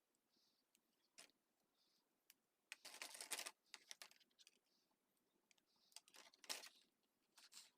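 Plastic toy train track pieces clicking and scraping as they are handled and fitted together: scattered faint clicks, with a louder rattling spell about three seconds in and another near six and a half seconds.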